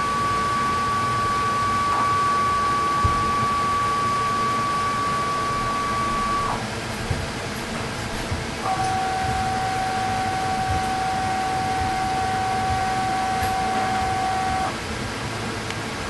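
Stepper motors of a 3D chocolate printer's gantry whining at a steady pitch as they drive the extruder head along one stroke, stopping about six and a half seconds in. About two seconds later a second move starts at a lower pitch and stops shortly before the end. A steady hiss runs underneath.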